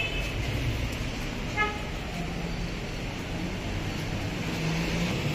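Steady city street traffic noise with engines humming, and one short car horn toot about a second and a half in.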